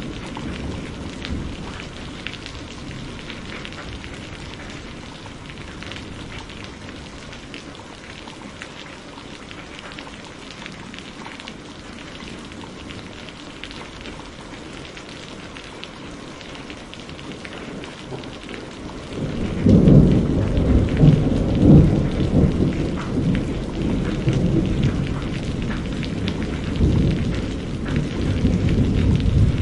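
Steady rain with a thunderstorm. About two-thirds of the way in a loud roll of thunder breaks in and rumbles on in several swells.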